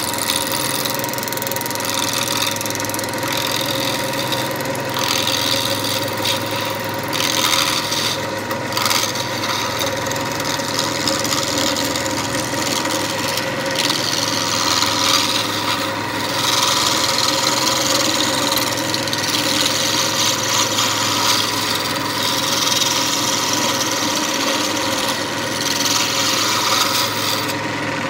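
Wood lathe running with a steady motor hum while a sharp chisel cuts the spinning snakewood pen blank down to a round barrel. The scraping, hissing cut comes and goes in passes of a few seconds, longest and strongest in the second half.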